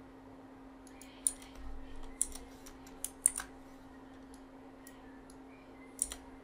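Scattered computer keyboard keystrokes and clicks: a quick cluster of them starting about a second in, then a couple more near the end, over a faint steady hum.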